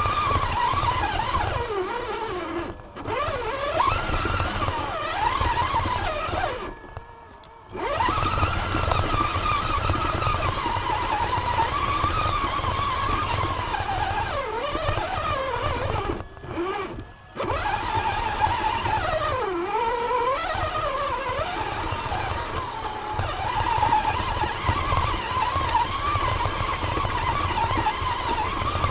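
Electric motor and gear drivetrain of a radio-controlled scale crawler whining as it drives over dead leaves, the pitch rising and falling with the throttle. It stops briefly about 3, 7 and 17 seconds in.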